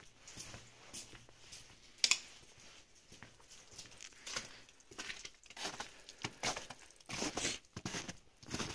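Footsteps crunching in fresh snow, uneven short crackles that grow denser and louder near the end, with one sharp click about two seconds in.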